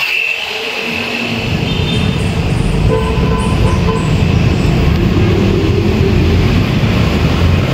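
Road traffic on a busy highway: a low rumble of passing vehicles, including heavy trucks, that grows louder over the first couple of seconds and then stays steady.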